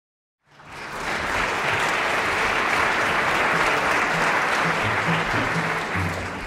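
Audience applauding. It starts about half a second in and begins to die down near the end.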